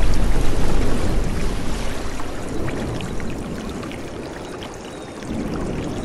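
A forest stream running, a steady rush of water. It grows quieter through the middle and swells again near the end.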